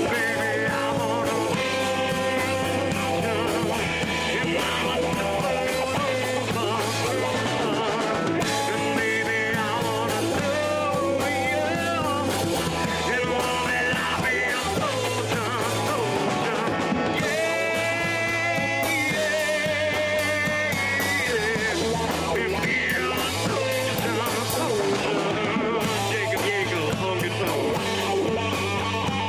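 Rock band playing a song: electric guitar over a steady bass line, with a singing voice.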